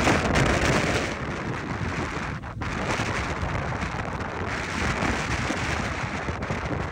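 Category 4 hurricane wind and driving rain blowing hard and buffeting the microphone in gusts, easing briefly about two and a half seconds in.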